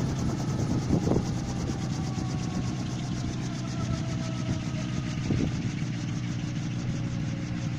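Homemade coaxial helicopter's engine running steadily at low revs with the rotors turning, a rapid even pulsing and a faint whine that slowly falls in pitch. Two short knocks, about a second in and near five and a half seconds.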